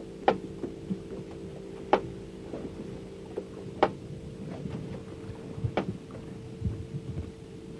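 Steady hum of a small boat's engine, with four sharp knocks about two seconds apart and a few softer thumps near the end.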